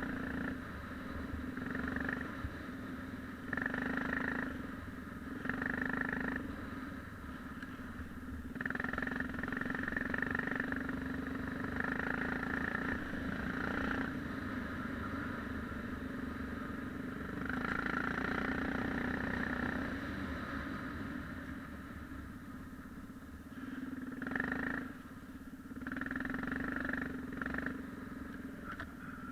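Yamaha XT 600's single-cylinder four-stroke engine running while the motorcycle is ridden, its sound swelling and easing every few seconds as the throttle is opened and closed.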